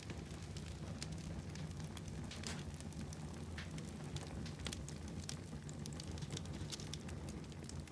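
Wood fire burning in a fireplace: frequent irregular crackles and pops over a steady low rumble of the flames.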